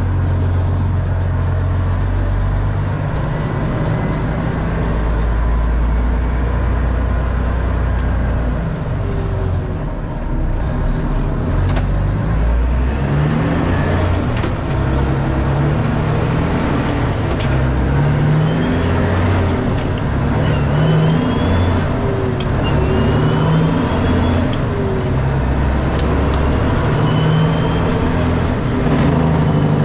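Freightliner FLD semi-truck's diesel engine pulling under load, heard from inside the cab. Its pitch rises and drops in steps every couple of seconds as the driver works through the gears, and a high whistle rises and falls with each pull from about halfway through.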